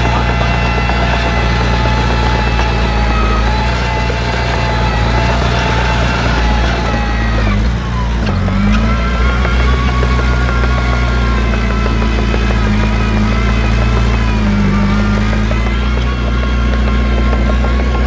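Crawler bulldozer's diesel engine running steadily. Its pitch dips and picks back up about eight seconds in, and again briefly around fourteen seconds.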